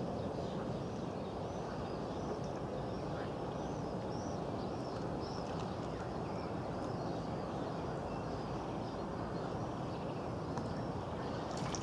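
Small birds chirping over and over, over a steady low rushing background of outdoor noise.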